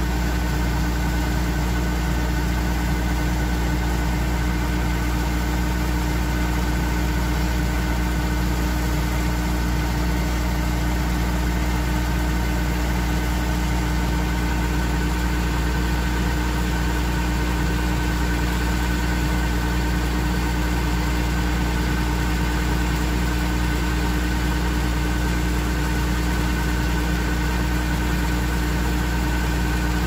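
Kubota DC-105X combine harvester's diesel engine running steadily while it unloads rice grain through its auger, an even drone with steady tones that does not change.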